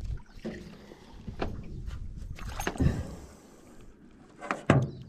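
Knocks and thumps against a small boat's hull with some water splashing, as a hooked bass is landed. The loudest thump comes near the end.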